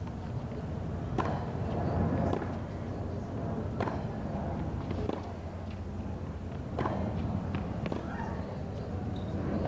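Tennis ball being struck by rackets during a point, several sharp pops spaced a second or more apart, over a steady background murmur from the crowd.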